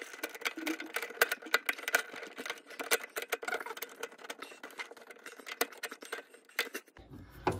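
Many small, irregular metal clicks and clinks from a garbage disposer's mounting ring and its bolts being fitted and turned by hand against the sink flange.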